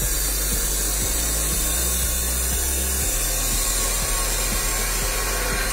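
Classic CLA-357 2000 W abrasive cut-off saw with a 355 mm disc cutting through steel stock: a steady, loud grinding hiss. Background music with a beat runs underneath.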